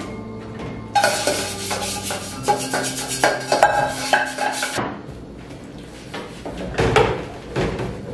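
Background music, with a metal saucepan and dishes clattering and scraping in a sink of soapy water. The clatter is busiest for the first half, then eases off.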